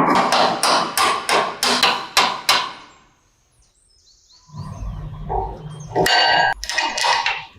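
Repeated hammer strikes, about four a second, stopping about two and a half seconds in. After a short pause comes a low rumble, then a ringing metallic clang about six seconds in.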